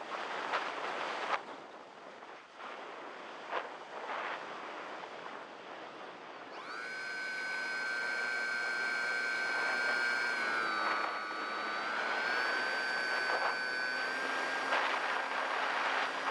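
Wind rushing over the onboard microphone of a Multiplex EasyStar model plane as it glides, then, about six and a half seconds in, its electric pusher motor spins up into a steady high whine that dips in pitch briefly and rises again, over the continuing wind noise.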